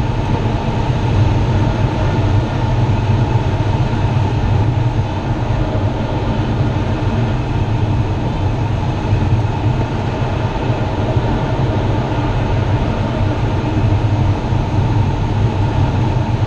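Steady airflow noise inside an unpowered Grob 102 glider's cockpit in flight: air rushing over the canopy and fuselage, a loud, even low rumble with a hiss above it.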